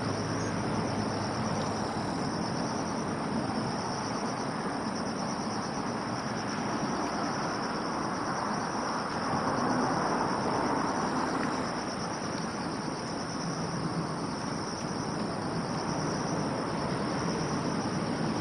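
Insects trilling steadily in a high, finely pulsing band, over a steady low background rumble.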